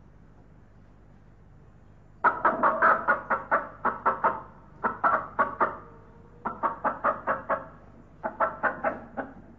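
Recording of a hen clucking: after about two seconds, four runs of quick clucks, roughly five a second, with short pauses between the runs.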